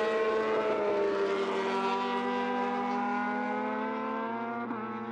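MotoGP race bike engine running at high revs, its note falling slowly in pitch and fading as it pulls away.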